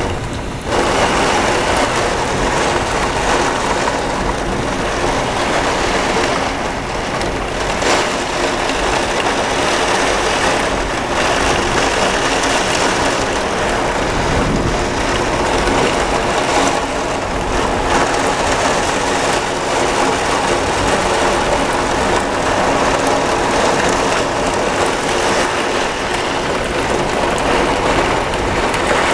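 Heavy thunderstorm rain and wind: a loud, steady rushing roar with no distinct strikes. It dips briefly about half a second in.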